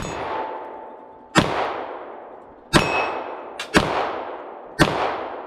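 A Polymer 80 pistol with a Live Free Armory slide firing a string of shots, roughly a second apart and each with a short echo. It cycles right after being submerged in water. A steel target plate rings briefly after some of the hits.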